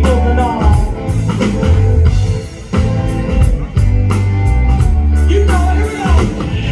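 Rock music played loud: singing over electric guitar and a drum kit.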